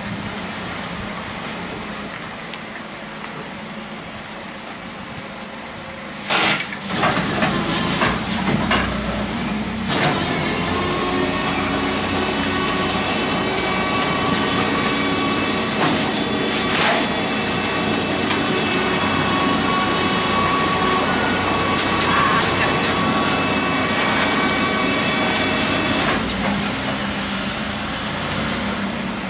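Rear-loading garbage truck's compactor working a load of bags: engine running, then loud crunching and snapping of the load about six seconds in, followed by a steady whine with several held tones from about ten seconds in until shortly before the end.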